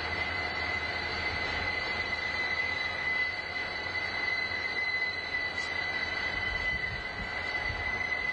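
Freight train rolling past, its wheels giving a steady high-pitched squeal over a low rumble.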